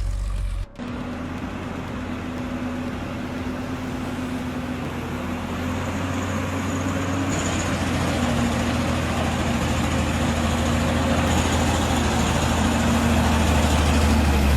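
An engine running steadily after a brief break under a second in, growing gradually louder.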